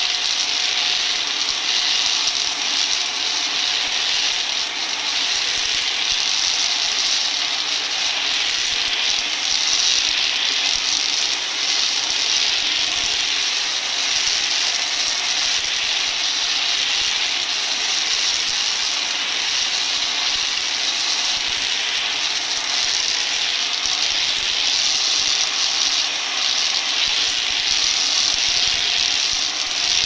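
Kitfort KT-575 upright wet-cleaning vacuum running steadily with its steam on as it is pushed over a rug. Something rattles inside it, which the owner takes for debris it has picked up.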